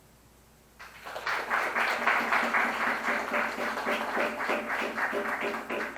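Audience applauding, starting about a second in and fading out near the end, at the close of a flute piece.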